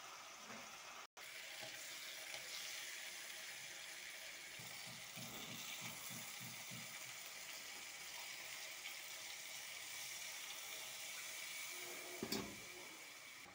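Raw pieces frying in hot oil and spice paste in an aluminium wok: a steady sizzling hiss with a short run of low bubbling pulses in the middle. A single knock sounds near the end.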